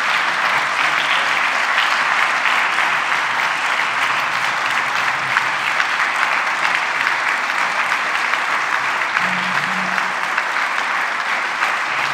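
Audience applauding: many hands clapping in a steady, sustained ovation.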